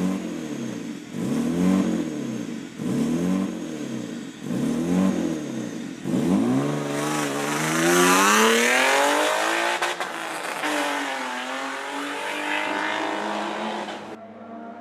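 Race car engine revved up and down repeatedly, about once a second, then accelerating hard with a long rising pitch. It settles into a steadier, quieter note that fades near the end.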